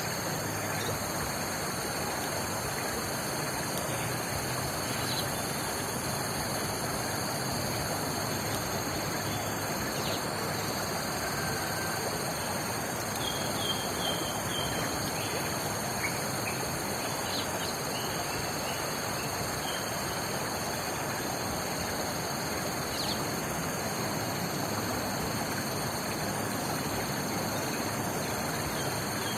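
Outdoor nature ambience: a steady rushing noise under constant high-pitched insect trilling, with a few short bird chirps scattered through, most of them about halfway through.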